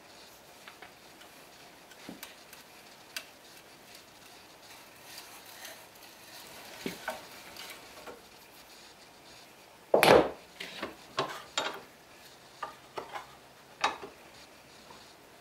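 Wood and tools being handled on a workbench: scattered light clicks and knocks, with a louder clattering scrape about ten seconds in followed by a few sharp knocks.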